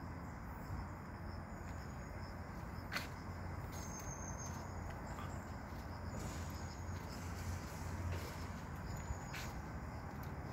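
Outdoor background: a steady low rumble with faint, short high-pitched chirps, and two sharp clicks, one about three seconds in and one near the end.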